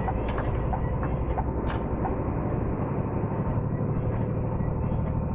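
Heavy goods lorry engine pulling away under power, a steady low rumble heard from inside the cab, with two short sharp clicks in the first couple of seconds.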